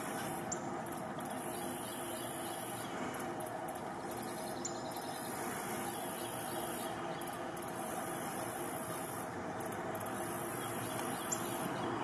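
Steady outdoor ambience: an even rushing hiss with a constant high-pitched hum, broken three times by brief, faint high bird chirps.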